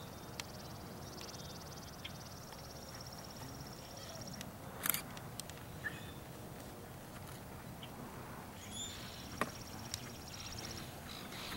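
Soft hoofbeats of a horse trotting on an arena's sand footing, with a bird's high trill heard twice and a sharp click about five seconds in.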